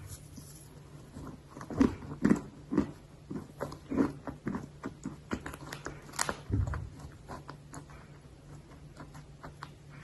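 Close-up biting and chewing of a hard, chalky lump of dry earth (eating clay or chalk): a run of sharp crunches, loudest about two to four seconds in, thinning to small crackles and clicks toward the end.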